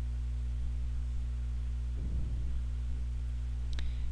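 Steady electrical mains hum with its overtones, picked up through the recording microphone, with a faint rustle about halfway and a light click near the end.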